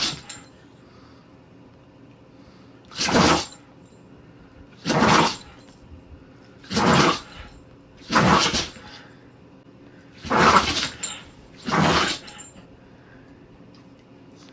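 A dog sneezing over and over: seven short, sharp, breathy sneezes about one and a half to two seconds apart, the first and loudest right at the start.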